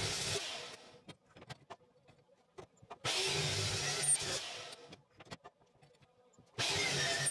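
MIG welder laying short tack welds on steel tubing: bursts of crackling arc noise about a second long, roughly three seconds apart, with the welder humming under load during each.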